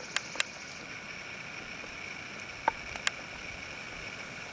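Quiet outdoor background: a steady, faint high-pitched hiss with a few soft clicks near the start and about three seconds in, and a brief chirp about two and a half seconds in.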